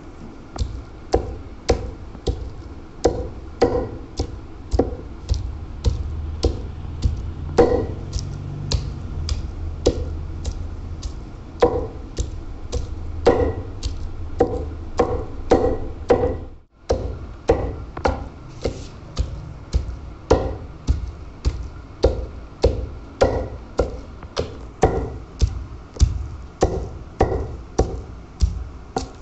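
Heavy wooden pestle pounding raw meat and fat in a stone mortar, a steady run of dull, thudding strikes about two a second, beating the meat into a paste for rista.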